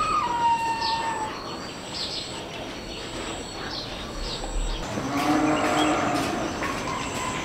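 A farm animal lets out one drawn-out call about five seconds in, with small birds chirping around it.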